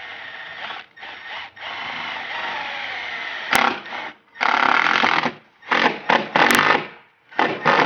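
Cordless power driver driving a self-tapping screw through the sheet-metal roof: a steady run of about three and a half seconds with a slightly rising pitch, then several short trigger bursts as the screw is run down.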